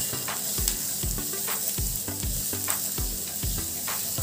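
Chopped onion, garlic and green chillies sizzling in hot oil in a non-stick pan while being stirred with a spatula, in the middle of sautéing. Background music with a steady beat plays underneath.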